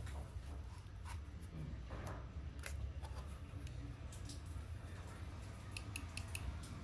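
Small plastic clicks and handling noises from a black plastic electrical connector being worked apart and fitted by hand on a Kärcher HD 585 pressure-washer pump, with a quick run of four sharp clicks about six seconds in.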